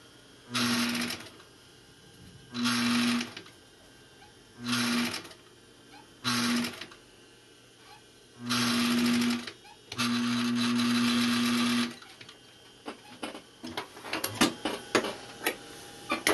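Gemsy industrial single-needle sewing machine stitching in six short runs, stopping and starting again between them, the last run the longest at about two seconds, as the brim is sewn onto the cap. Near the end come scattered light clicks and rustles of handling.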